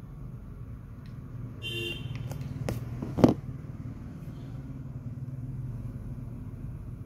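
Steady low rumble of road traffic, with a short vehicle horn toot about two seconds in, then a sharp knock a little after three seconds, the loudest sound.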